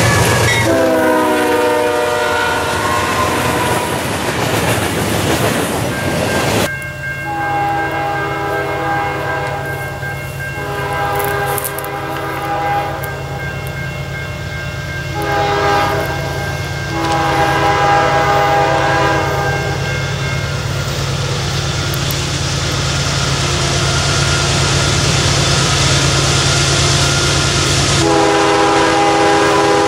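A CSX diesel locomotive's multi-chime horn falls in pitch as the freight passes close, over the rumble and rail noise of the train. Then a distant approaching freight locomotive blows its horn in the grade-crossing pattern, long, long, short, long, with another long blast near the end.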